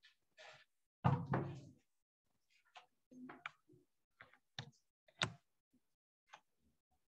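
A few irregular knocks and thumps, the loudest a brief muffled burst about a second in.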